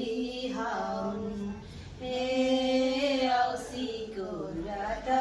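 Women's voices singing a Nepali Bhailini (Bhailo) Tihar folk song without instruments, in long held phrases with a short break about two seconds in.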